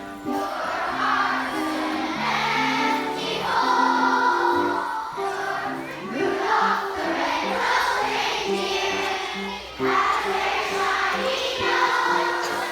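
Music with a group of voices singing, carried on continuous held notes that change in steps.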